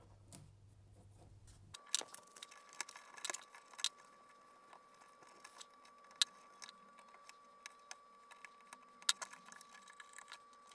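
Faint, scattered clicks and ticks of fingers handling and untwisting the twisted copper wire pairs of Cat6 network cable. A faint steady high tone runs under them from about two seconds in.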